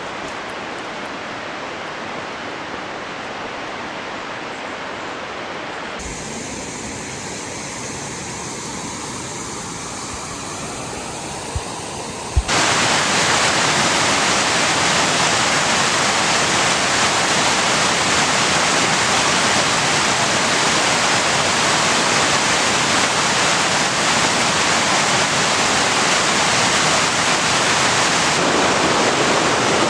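Rushing water, a steady loud rush heard across a few cut-together shots; it jumps louder and fuller about twelve seconds in.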